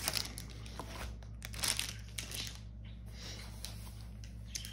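Rustling and crinkling of a rolled diamond-painting canvas and its plastic wrapping being handled, with a louder crinkle about one and a half seconds in.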